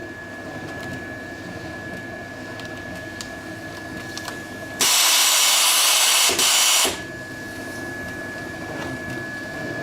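SF-150 horizontal continuous band sealer running with a steady motor hum and a thin high whine. About five seconds in, its gas-filling nozzle lets out a loud hiss of compressed air or nitrogen for about two seconds, with a brief dip in the middle, filling the bag as it passes through to be sealed.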